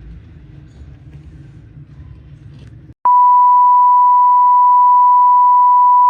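Low background noise, then about three seconds in a loud, steady, pure beep of about 1 kHz cuts in abruptly, with all other sound muted under it. It is an editing bleep laid over the audio, the kind used to censor speech.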